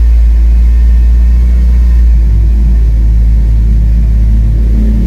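Nissan Grand Livina X-Gear's four-cylinder petrol engine running steadily just after start-up, held at about 2,000 rpm instead of dropping to a normal idle, which the owner puts down to a failing fuel pump.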